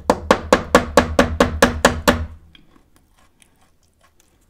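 A hard, stale biscuit rapped about ten times in quick succession on a hard surface, roughly four knocks a second, each a sharp knock with a short ring, then it stops about two seconds in; the wooden knocking shows how hard the old biscuit has gone.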